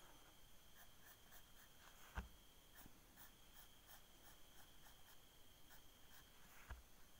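Graphite pencil scratching on paper in quick, short shading strokes, several a second, faint. Two brief soft knocks stand out, about two seconds in and near the end.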